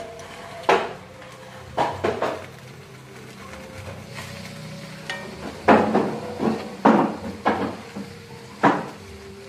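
Metal tongs knocking and scraping against a metal wok and grill pan while chicken pieces are lifted out of spice paste: about seven sharp clanks, irregularly spaced, the loudest a little past the middle.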